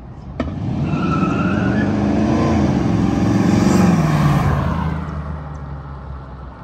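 Chevrolet Ramjet 350 small-block V8 in a 1933 Ford Victoria hot rod, driving past. The engine note grows louder as the car approaches, peaks about four seconds in, then drops in pitch and fades as it pulls away.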